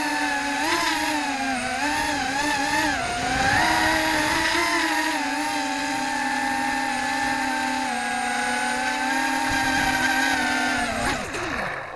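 FPV racing quadcopter's brushless motors whining, the pitch wavering up and down with throttle, then falling steeply as the motors spin down near the end.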